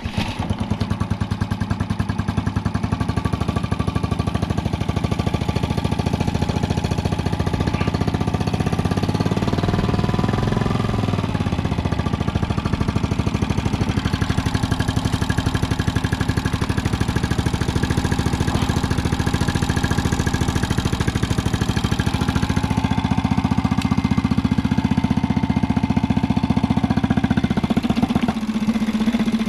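Small 3.5 hp outboard motor running steadily. Its note wavers briefly about ten seconds in and changes again near the end.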